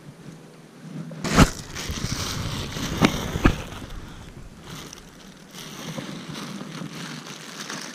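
Close rustling and crinkling of a plastic bag and fleece sleeve being handled right at the microphone, with three sharp knocks in the first half and a quieter rustle near the end.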